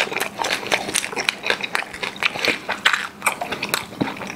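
Close-miked chewing of crispy roast pork knuckle (Schweinshaxe): a run of small, sharp crunches as the fried-crisp skin is bitten and chewed.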